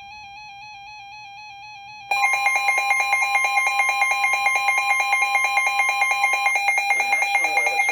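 NOAA Weather Radio receivers sounding a flash flood warning alert. A quieter steady warbling electronic tone runs first. About two seconds in, a loud rapidly pulsing alarm beep starts, together with a steady warning tone that cuts off about two seconds before the end.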